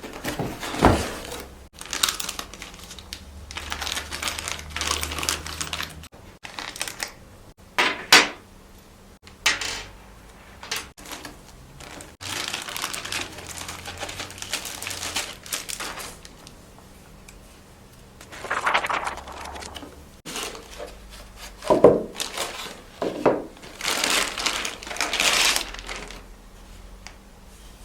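Handling noise: irregular rustling and crinkling, like packaging being handled, broken by sharp clicks and knocks of an object being moved and set down.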